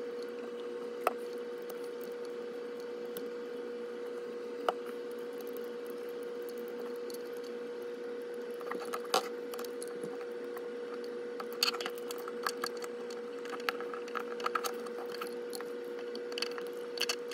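Small clicks and light scraping from a cotton swab and small screwdriver working over an HO scale model locomotive's motor and frame, scattered and coming in little clusters, over a steady faint hum.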